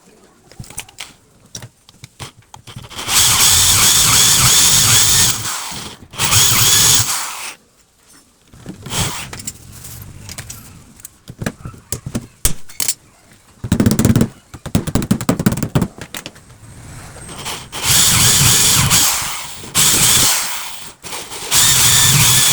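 A power drill-driver runs in four bursts of a few seconds each, with clicks and knocks of handling in between.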